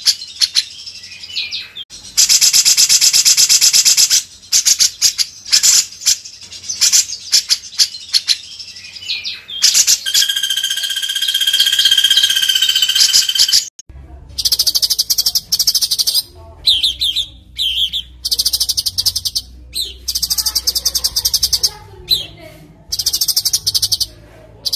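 Songbird song from a spliced birdsong recording: fast, high trills and chattering bursts, with one long whistled phrase, then an abrupt switch about 14 seconds in to a different recording of short, high trill bursts over a steady low hum.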